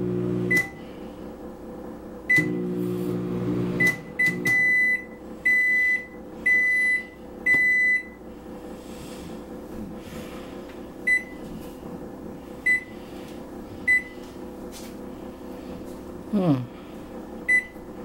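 Hamilton Beach microwave oven: its running hum in two short spells while keypad beeps sound at each button press, then four longer beeps that signal the end of a cooking cycle, followed by a few single keypad beeps spaced a second or more apart.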